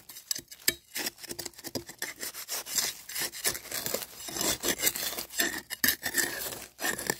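A knife blade scraping and digging into dry soil and leaf litter around the base of a termite mushroom: a dense, irregular run of scratches and rustles.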